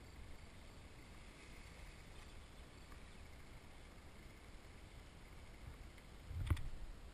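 Faint meadow ambience: a low steady rumble and faint steady insect chirring, with a single dull thump about six and a half seconds in.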